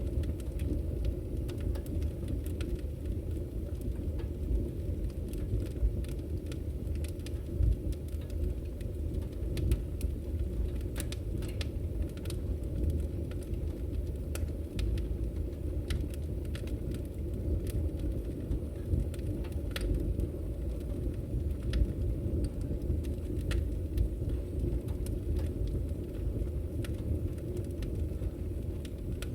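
Open wood fire crackling: a steady low rush of burning with frequent small, irregular pops and snaps.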